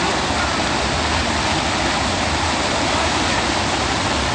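Muddy floodwater of a swollen river rushing and churning over and past a road, a steady loud rush of water.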